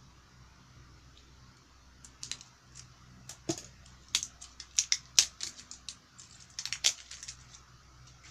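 A plastic toy boat being handled: a run of irregular sharp clicks, knocks and rattles starting about two seconds in and dying away near the end.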